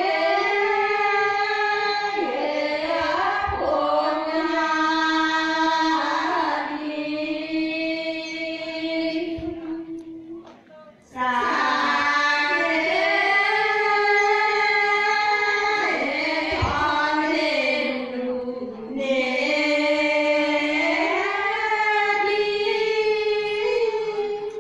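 Group of women singing a traditional Karen tha chant together without instruments, in long held phrases. There is a short pause for breath about eleven seconds in.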